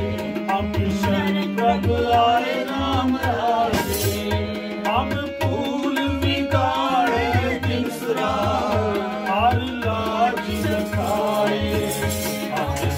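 Sikh kirtan: a harmonium holding steady tones while tabla plays a continuous rhythm of bass and treble strokes, and a man sings the wavering melody over them.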